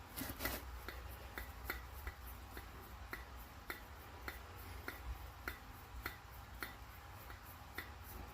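Refrigerator reciprocating compressor with its stator removed, its rotor being turned slowly: a light, regular click a little under twice a second as the piston goes in and out.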